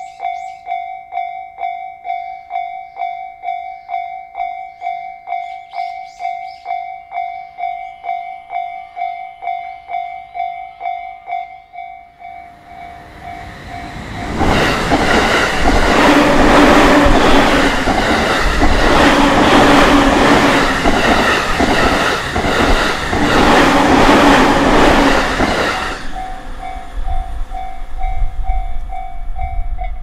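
Japanese level-crossing warning bell ringing in a steady beat of about two strikes a second. About fourteen seconds in, a JR Takasaki Line electric commuter train passes at speed: the rumble and clatter of its wheels over the rails drown the bell for about twelve seconds, and the bell is heard again near the end.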